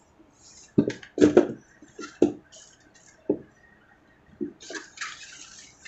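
Stiff foam packing blocks being pulled out of a hard case's cut foam insert and handled: a series of short squeaks, rubs and soft knocks, then a longer scraping rub near the end.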